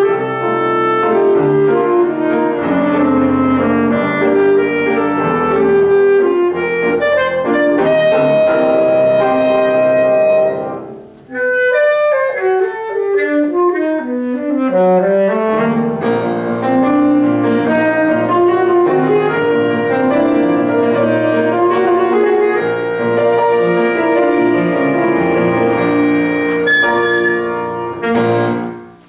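Saxophone playing a piece with upright piano accompaniment. About eleven seconds in there is a brief break, followed by a run of falling notes. The music ends with a final note just before the close.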